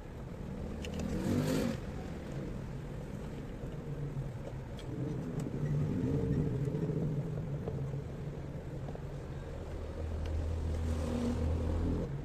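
A vehicle engine running, its pitch rising and falling, with a louder low stretch near the end that stops abruptly.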